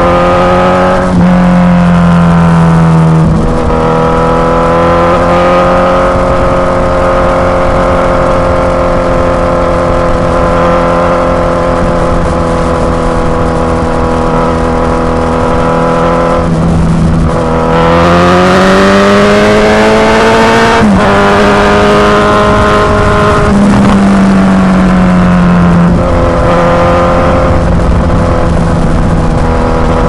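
Suzuki GSX-S1000's inline-four engine running through an aftermarket Firetong Willy Made exhaust while riding at a steady cruise. About seventeen seconds in, the note climbs as the bike accelerates, then drops back suddenly, with a few smaller steps in pitch after that.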